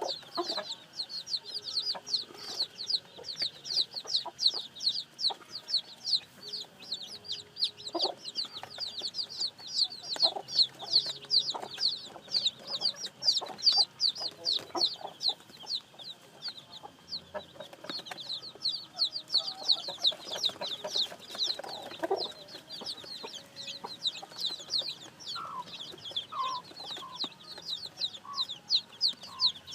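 A flock of newly hatched chicks peeping without a break, short high falling peeps several a second, with a hen's lower clucks now and then.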